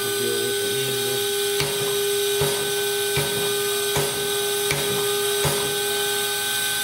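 Moore G18 jig grinder's grinding spindle running with a steady high hum, while the head's air-powered up-and-down stroke reverses with a click and a soft thump about every 0.8 seconds.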